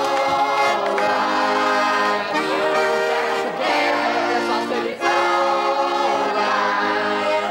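Accordion playing loud sustained chords in a punk song, the chord changing every second or so.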